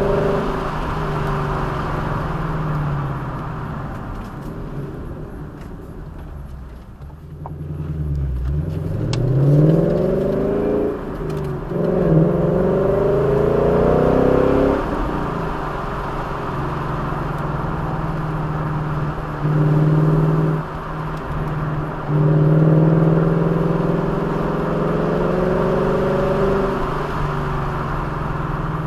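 Motor vehicle's engine under way, its note rising and falling repeatedly as it accelerates and eases off, over steady road noise. About a quarter of the way in it drops to low revs and quiets, then climbs again.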